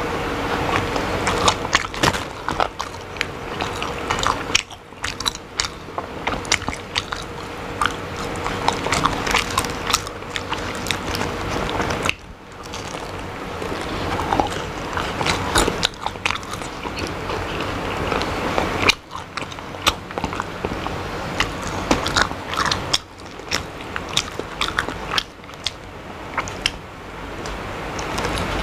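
Close-miked mukbang eating: a person biting and chewing battered chicken feet with his mouth open, full of small crisp clicks and wet smacking. There are a few brief breaks in the sound.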